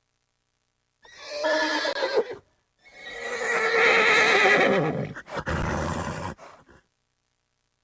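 Horse whinnying: a short call, then a longer whinny whose pitch falls away at the end, followed by a lower, rougher sound.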